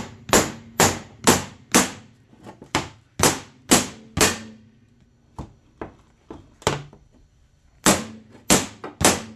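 Hammer blows on a snowmobile's metal tunnel, backed by a flat piece of metal, knocking out the damage where a stud was pushed through. The sharp strikes come about two a second, each with a short ring, with a few lighter taps in a lull around the middle.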